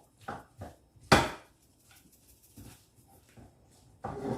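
A cooking utensil knocking and scraping in a pan a few times while fried rice is stirred, with one louder knock about a second in.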